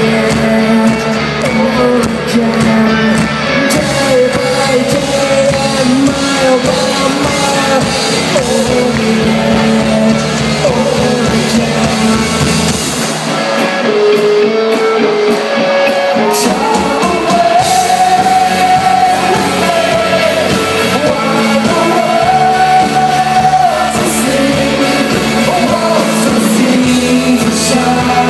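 Live rock band playing loud: electric guitars, bass and drums under a sung lead vocal. About 13 seconds in the bass and drums drop out for a few seconds, leaving guitar and voice, then the full band comes back in.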